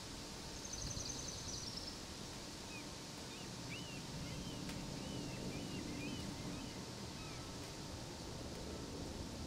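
Steady outdoor background noise with small birds chirping: a quick high trill about half a second in, then a run of short chirps between roughly three and a half and seven and a half seconds.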